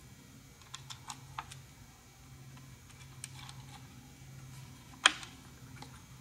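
Small scattered clicks and taps of star nuts and a license plate bracket being handled and threaded by hand onto a motorcycle's undertail bolts, with one sharper, louder click about five seconds in. A low steady hum runs underneath.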